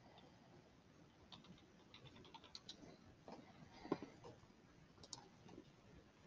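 Faint typing on a computer keyboard: scattered light key clicks, with one sharper click about four seconds in.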